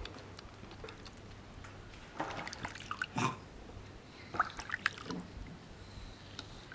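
Water dripping and splashing in small amounts as a baby vervet monkey's rear is rinsed and rubbed clean by hand, with a few short wet clicks and splashes.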